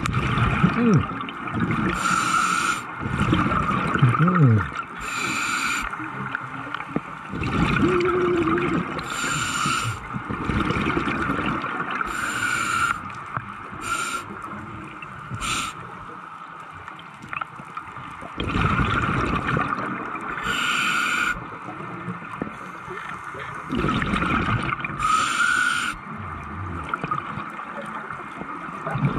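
Scuba regulator breathing heard underwater: exhaled air bursting out as bubbles every few seconds, with the hiss and gurgle of breathing in between.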